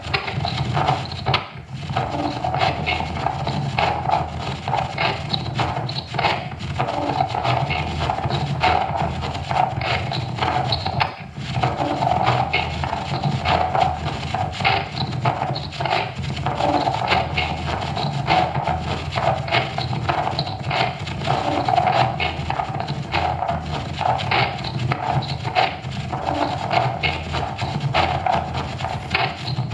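A live experimental sound performance: a dense, continuous scraping and rasping texture over a steady hum, with no clear beat. It drops out briefly twice, near the start and about a third of the way in.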